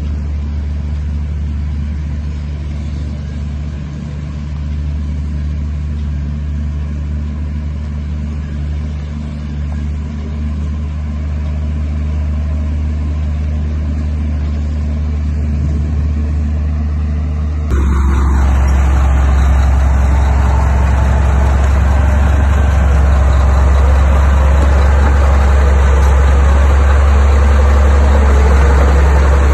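Heavy diesel earthmoving machinery running steadily with a low engine drone; about 18 s in the sound jumps abruptly to a louder, harsher engine noise.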